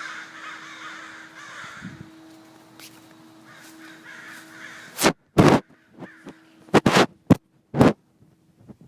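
Crows cawing: faint calls at first, then a run of about six loud, harsh caws close by, starting about halfway through, in two quick clusters.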